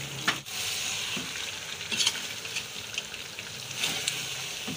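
Cauliflower florets sizzling as they land in hot ghee and beef masala in an aluminium pressure cooker, a steady frying hiss. A spoon knocks and scrapes against the pot several times as the florets are stirred in.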